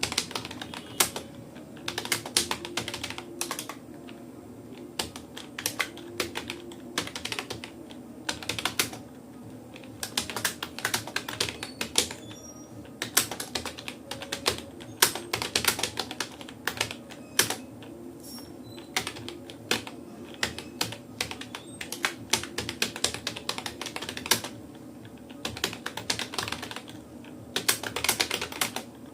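Typing on a Rapoo computer keyboard: irregular runs of key clicks at moderate speed, broken by short pauses of a second or so.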